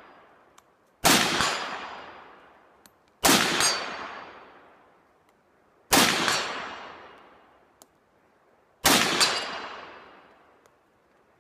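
Four shots from an SKS semi-automatic rifle in 7.62x39, fired two to three seconds apart, each with a long fading echo.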